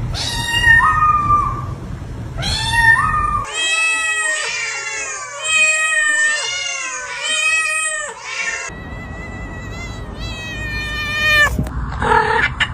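Cats meowing and yowling in a string of drawn-out, pitched calls, several of them overlapping through the middle.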